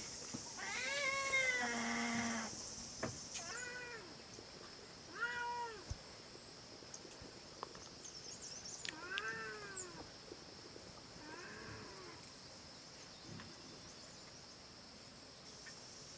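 A cat meowing about six times, each meow rising and then falling in pitch, the later ones fainter. A steady high-pitched hiss runs underneath.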